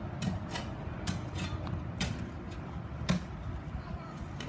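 Footsteps crunching on wood-chip mulch: a handful of sharp, irregular steps over a steady low background noise.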